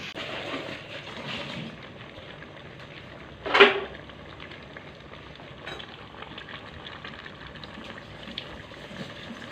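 Chicken gizzards and liver sizzling and bubbling in soy sauce in an aluminium pan, stirred with a spatula at first. A brief, louder scrape or knock comes about three and a half seconds in.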